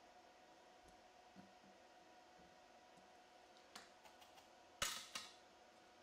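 Near silence with a faint steady hum, then a few light clicks and two sharp knocks about five seconds in, the first the loudest, as the circuit board and tools are handled on the workbench.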